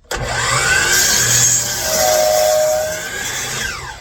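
Electric miter saw spinning up, cutting through the end of a pressure-treated 4x4, and winding down. Its pitch rises as it starts and falls near the end.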